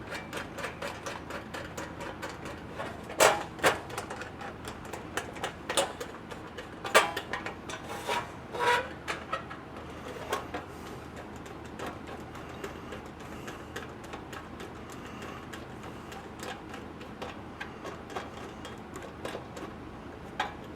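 Light metallic clicks and clinks of hand tools tightening the screw that holds a trunk latch handle to a Model A Ford trunk lid. Several louder sharp clinks come in the first half, then fainter quick ticking.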